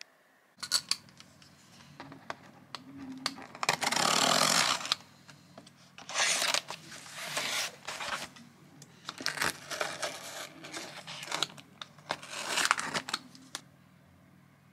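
Cardboard mailer being torn open by hand: a few sharp clicks, then several bursts of tearing and crinkling cardboard and paper, with a faint steady low hum underneath.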